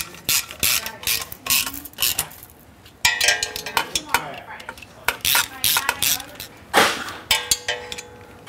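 Hand ratchet clicking in short strokes and the wrench clinking on metal, tightening the bolts of a freshly fitted stainless exhaust. A longer run of quick ratchet clicks comes about three seconds in.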